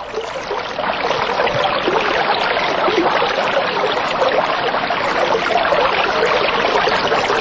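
Running water: a steady, dense rushing and splashing noise.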